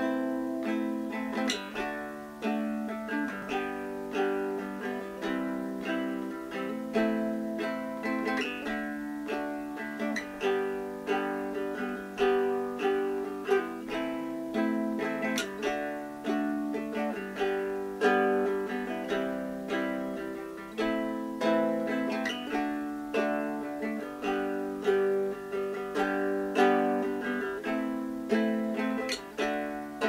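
A Wolfelele ukulele being plucked, playing a steady run of picked notes and chords.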